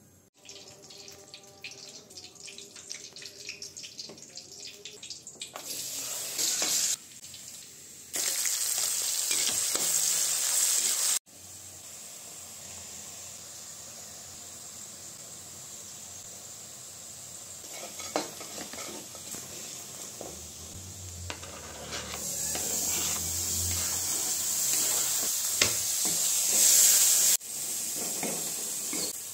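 Hot oil sizzling in a kadhai as chopped garlic and spices fry and are stirred, heard in a string of short cuts. The sizzle is loudest in two stretches, about a third of the way in and again near the end.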